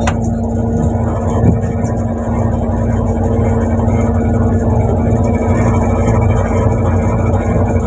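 Fishing boat's engine running steadily on deck: a loud, even drone with a constant low hum. A single knock about a second and a half in.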